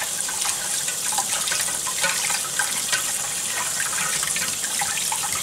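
Cold water running steadily from a kitchen tap, splashing over a crab piece rubbed clean by hand and into a bowl in a stainless steel sink.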